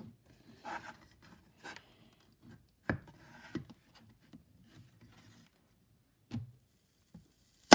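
Hand work on a speaker system's amplifier: short scraping and rubbing noises, then several sharp clicks as a part, apparently the heat sink, is worked loose.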